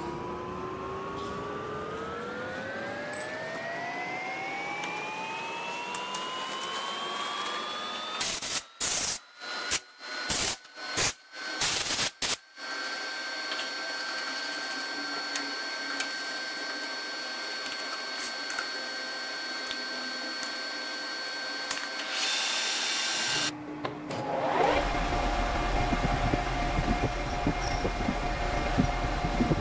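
Metal lathe machine sounds: a whine rising in pitch over the first several seconds, later a steady high whine. Near the end the lathe spindle runs with a low hum and fine ticking as a small rod is turned.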